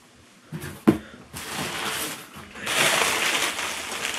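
Two sharp knocks about half a second apart, then paper wrapping rustling and crinkling as it is pulled off a glass decanter, louder in the second half.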